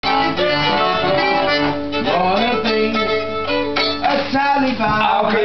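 Fiddle playing an instrumental tune, with guitar accompaniment.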